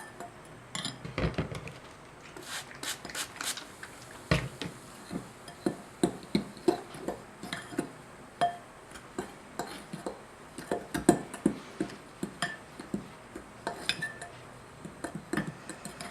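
Spoon scraping and knocking against a mixing bowl as damp dishwasher-tablet powder is stirred and pressed down, in irregular strokes with a heavier knock about four seconds in.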